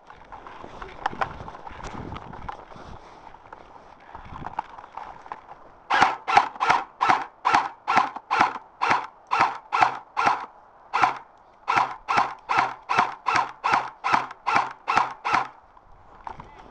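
Quick footsteps crunching through snow, about two and a half steps a second, starting about six seconds in with one short break near the middle. Before them, fainter rustling and shuffling.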